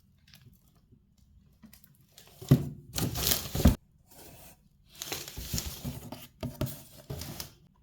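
Packaging being torn and crinkled by hand, in two bouts of rustling: a short one with a couple of sharp rips about halfway in, then a longer one.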